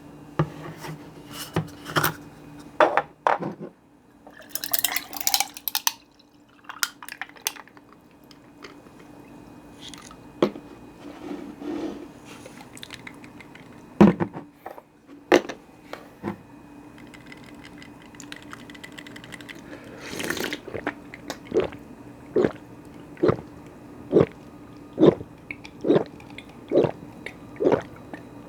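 A person drinking a grapefruit drink up close: clicks and knocks of the drink being handled, short hissing stretches, then steady gulping from about two-thirds of the way in, about one and a half swallows a second.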